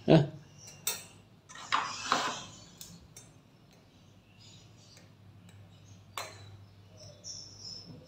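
Metal tweezers and the wire bird cage clinking in scattered sharp clicks, with a short scraping clatter about two seconds in as the pull-out feed tray slides back into the cage base.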